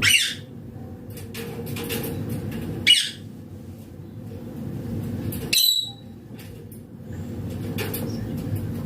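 Green ringneck parakeet (rose-ringed parakeet) giving three short, high-pitched shrieks, about three seconds apart, over a steady low background hum.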